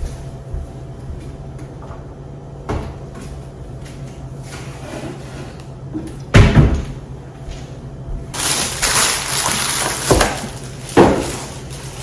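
Groceries and storage containers being handled while stocking a pantry: a loud knock about halfway through, a couple of seconds of rustling, then two more knocks.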